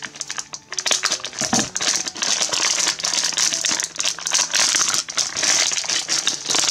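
Plastic foil blind bag crinkling and crackling as hands tear it open and rummage inside for the toy figure.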